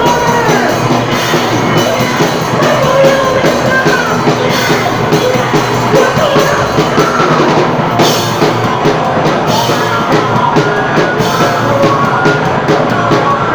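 A live band playing a rock-style song at full volume: a drum kit keeps a steady beat under a singing voice and instruments.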